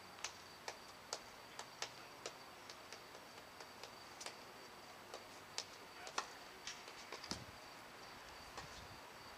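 Scattered light ticks and taps of tennis balls on a hard court, irregularly spaced, a few louder around two-thirds of the way through, over a faint steady high tone.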